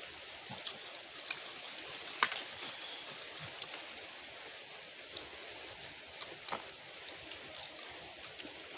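Quiet sounds of people eating with their hands off banana leaves: a handful of scattered sharp clicks and taps over a steady outdoor hiss.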